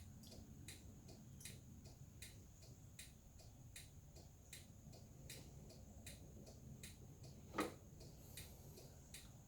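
Faint, regular ticking of a 2018 Zero SR electric motorcycle's turn-signal flasher, about one tick every three-quarters of a second, with the turn signal switched on. One brief, louder sound breaks in about three-quarters of the way through.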